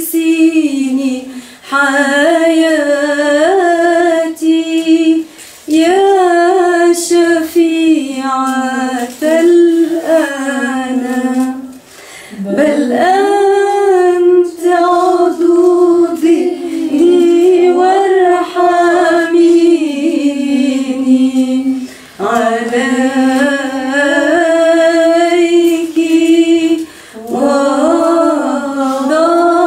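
A woman singing an Arabic Byzantine hymn to the Mother of God unaccompanied, in long ornamented melismatic phrases with short breaths between them.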